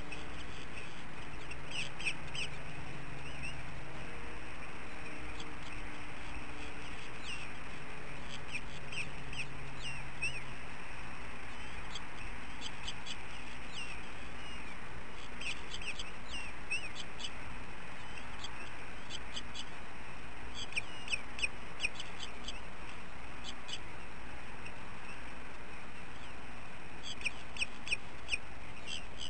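Runs of short, high bird chirps, several quick notes at a time, come and go over a steady background hiss. A faint low hum fades out about ten seconds in.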